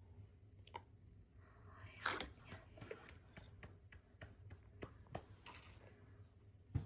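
A toddler feeding herself at the table: scattered light clicks and taps of utensils and hands on her plate, with a brief rustle about two seconds in and a sharper knock at the end.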